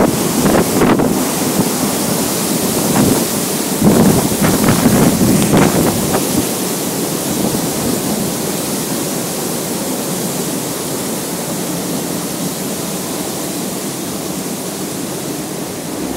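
Waterfall pouring into the water with a steady rushing hiss. Wind buffets the microphone in gusts during the first six seconds, then the rush carries on a little softer.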